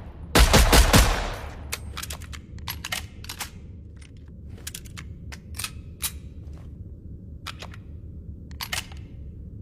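SIG Sauer handgun firing three shots in quick succession about half a second in, followed by a scattering of much fainter, irregularly spaced sharp cracks.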